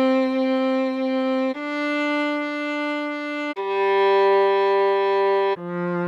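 Viola playing a slow melody at half speed in long held bowed notes of about two seconds each, changing pitch three times.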